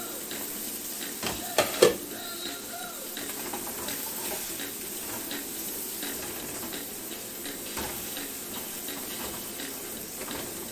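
Turkey burgers and meatballs sizzling steadily in a skillet. About two seconds in, the pan's glass lid is set down with two sharp clanks, the loudest sounds here. Afterwards there are lighter scrapes and taps of a spatula in the pan.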